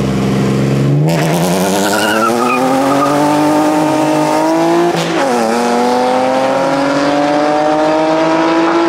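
Cars launching from a standing start in a street drag race: the engines hold steady on the line, then rev up hard about a second in, climbing in pitch, with a gear shift about five seconds in before climbing again.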